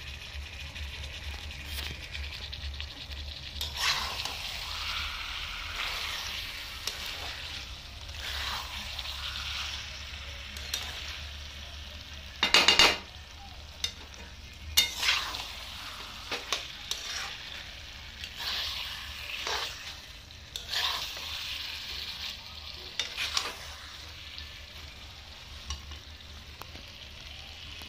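Thick curry sizzling as it fries in a metal pot, stirred with a steel spatula that scrapes against the pot in short strokes every second or two. One much louder scrape about halfway through.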